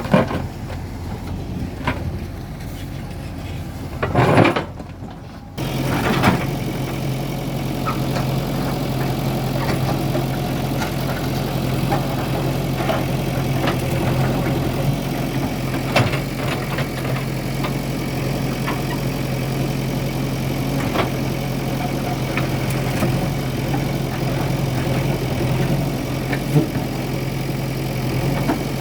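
JCB 3DX backhoe loader's diesel engine running steadily, with scattered short knocks and clanks from the machine working. The steady drone begins sharply about five seconds in, after a quieter, uneven stretch with one loud knock.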